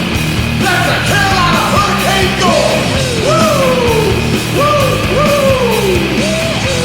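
A loud rock goal song with yelled vocals over guitar and drums.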